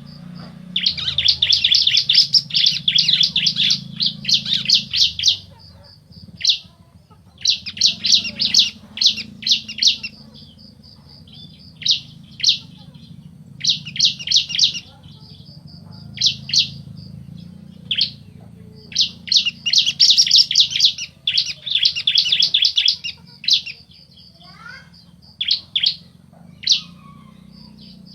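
Bar-winged prinias (ciblek), male and female, calling back and forth in bursts of rapid, high, buzzy trilled notes. The long runs of a few seconds alternate with short single chirps and pauses, over a faint low steady hum.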